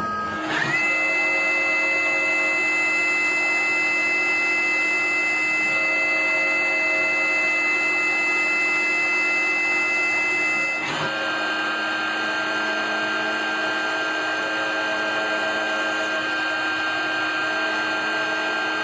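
5-axis CNC milling machine's spindle whining at a steady high pitch as an end mill cuts a gear-toothed metal part. The whine rises to speed in the first second and drops to a lower pitch about eleven seconds in.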